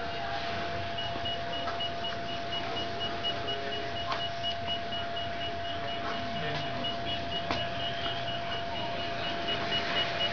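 Electronic beeping: a rapid, evenly paced string of high beeps, about four a second, starting about a second in, over a steady mid-pitched tone and a low machinery hum.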